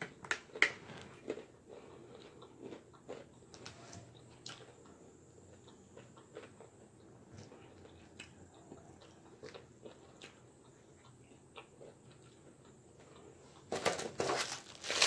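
A person chewing a mouthful of Cobb salad, with small crunches and clicks that are strongest in the first second. Near the end a plastic packet crinkles loudly as it is handled.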